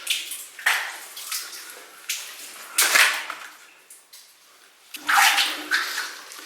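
Footsteps along the floor of an abandoned mine tunnel: an uneven series of scuffing steps, several close together near the start, two loud ones about three seconds in, and another cluster near the end.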